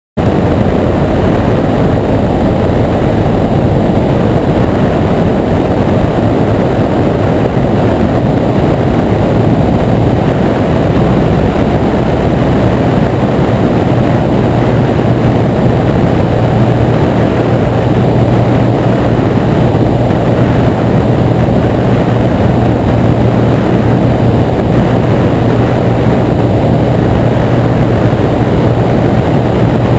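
Kolb Firestar II ultralight's engine and propeller running steadily in flight, a continuous low engine note that grows a little stronger about halfway through, mixed with rushing air over the microphone.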